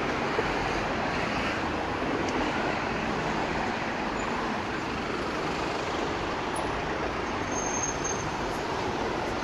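Steady road traffic on a busy city street: cars and taxis driving past close by, a continuous rush of engines and tyres on asphalt.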